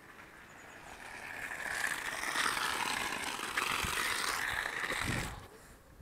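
Water from a garden hose spraying onto gravel and concrete: a steady hiss that builds over the first two seconds and stops abruptly about five seconds in.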